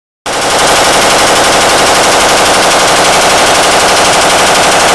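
Suppressed M249 belt-fed light machine gun firing one long continuous burst, starting abruptly about a quarter second in.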